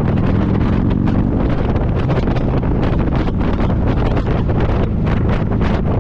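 Wind buffeting the microphone of a motorcycle riding at speed, with the bike's engine droning steadily underneath.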